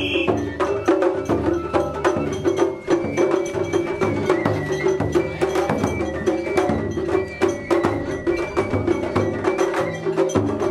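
Festival hayashi music played on a festival float: rapid taiko drum strikes with sharp clacking beats over a steady, held melodic line.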